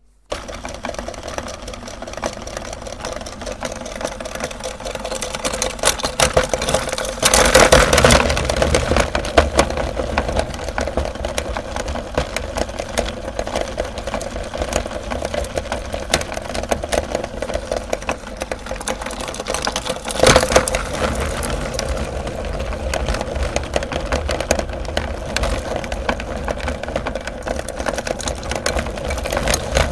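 Electric meat grinder switching on suddenly and running steadily with a dense crackle as it crushes a mini umbrella. The crunching grows louder about eight seconds in and again briefly around twenty seconds.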